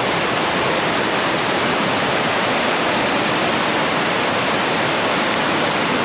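Water rushing steadily in a stream running high after rain.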